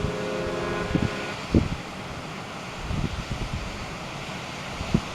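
Wind buffeting the microphone over a steady rush of wind and water, with a few low thumps. Background music fades out in the first second or so.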